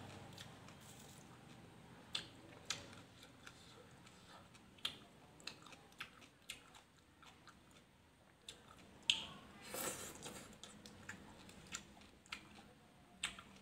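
Faint chewing and biting of crunchy shredded green papaya salad, with scattered small clicks and crackles and a louder burst about nine seconds in.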